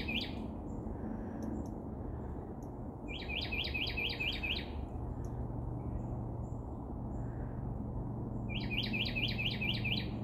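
A songbird singing a short phrase of rapid repeated notes, heard three times a few seconds apart, over a low steady hum.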